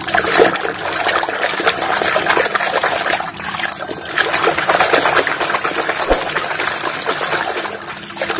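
A hand sloshing and swishing muddy water in a basin, with many small knocks and clicks as plastic toy vehicles are stirred and bump together under the water.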